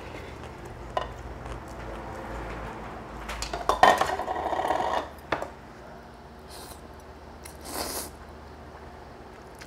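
Metal chopsticks clattering and scraping against ceramic bowls, busiest and loudest from about three and a half to five seconds in. Near the end comes a short slurp of ramen noodles.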